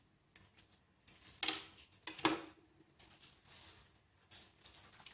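Small metallic clicks and knocks of a screwdriver and the parts of a Webley Junior air pistol being handled during disassembly, with two louder knocks close together about a second and a half in.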